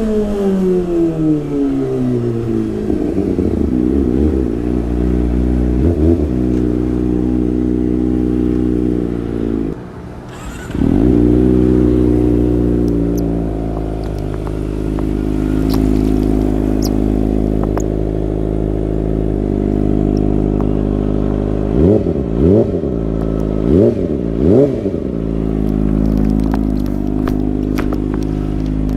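Kawasaki ZX-25R's 250 cc inline-four through a Sportisi Motorsport SRX aftermarket exhaust. The revs fall back to idle, then it idles steadily with a few short throttle blips, two quick pairs of them near the end.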